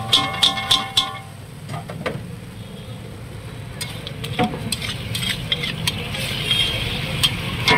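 A steel spatula scrapes and clinks against a large iron kadai as pav bhaji is stirred over a light sizzle. In the first second there are quick ringing metallic taps, about four a second. After that come scattered scrapes and taps, with another run of clinks near the end.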